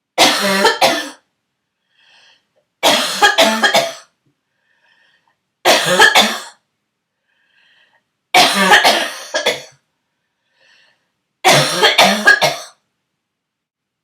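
A sick person's throaty, barking cough: five fits of two to four rapid coughs each, about every three seconds, with faint breaths drawn between the fits.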